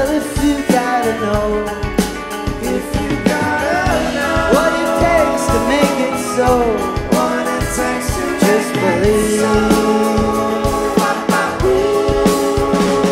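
Rock band playing an instrumental stretch of a song: drums, bass, keyboards and guitars, with a lead melody of gliding, bending notes over sustained chords.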